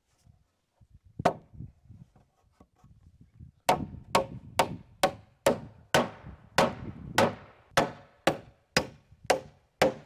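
Hammer driving a nail into a rough-cut wooden siding board: one blow, a pause, then about a dozen steady blows roughly two a second, each with a short ring.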